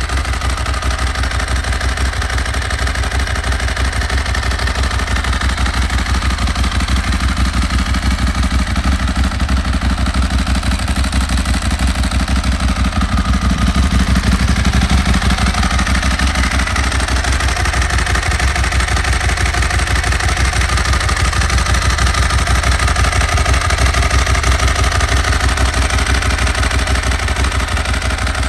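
Ducati 1098S Tricolore's L-twin engine idling through a Termignoni exhaust: a steady, rapid, uneven pulsing beat with no revving, a little louder about halfway through.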